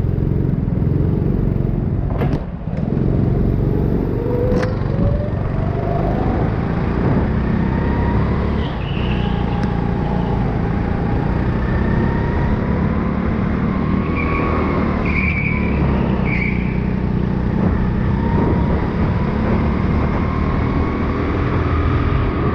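Go-kart's engine heard from onboard at racing speed, its pitch climbing steadily over the first several seconds as the kart accelerates onto the track, then rising and dipping through the corners. A knock about two seconds in, and a few short high squeaks later on.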